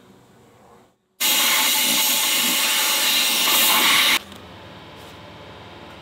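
Compressed-air blow gun hissing loudly for about three seconds, blowing pull strings through the inside of a motorcycle handlebar. It starts abruptly about a second in and cuts off suddenly.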